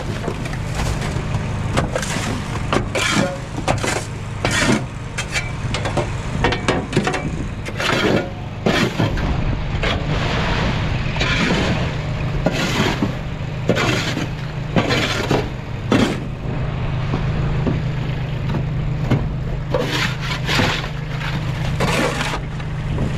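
Shovel scraping and chipping at frozen debris on a trailer deck, a string of irregular sharp scrapes and knocks, over a Walker mower engine idling steadily.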